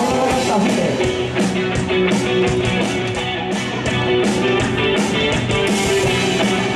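Live rock band playing: a Stratocaster-style electric guitar plays a lead line with long held notes over a drum kit keeping a steady beat on the cymbals.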